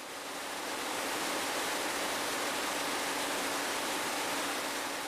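A steady, even hiss with no rhythm or clicks, swelling during the first second and then holding level.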